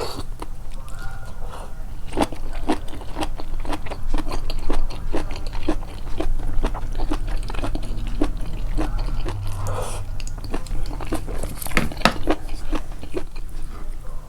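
Close, amplified chewing of food: a steady run of crisp crunches and wet mouth clicks, about two or three a second, from about two seconds in.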